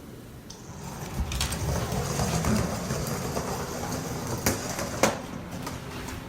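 A rumbling, rattling mechanical noise that swells about a second in, with two sharp clacks near the end.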